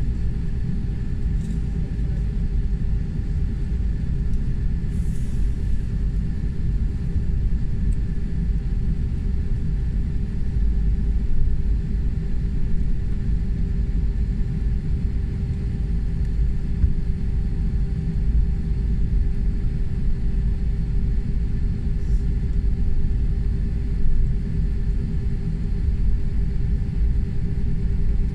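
Jet airliner taxiing, heard from inside the passenger cabin: a steady low engine rumble with a constant hum.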